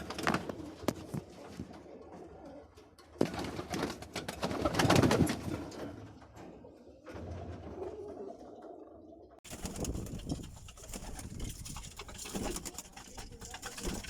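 Domestic pigeons cooing, from a loft of Birmingham roller pigeons.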